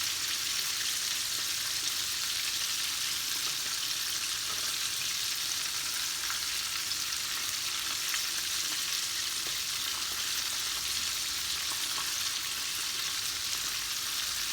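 Flour-coated chicken drumsticks deep-frying in hot oil in a wok, a steady sizzle with small crackles and pops throughout.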